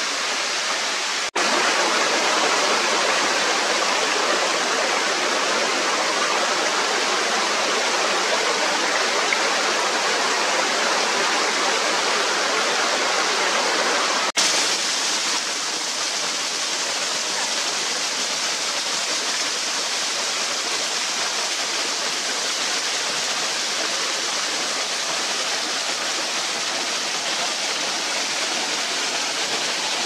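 Small waterfall flowing down ice-coated rocks: a steady rush of falling water. The sound breaks off for an instant twice, about a second and a half in and about halfway through.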